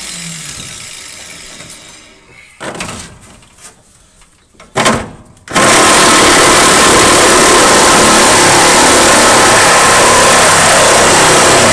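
Cordless power tool cutting into the rusty steel floor pan of a 1954 Chevrolet Bel Air, starting about five and a half seconds in and running loud and steady. Before it, a hiss dies away and a few knocks are heard.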